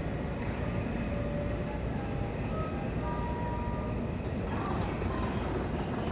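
JR 313 series electric train pulling out, a steady running rumble with a faint whine that climbs in pitch as it gathers speed.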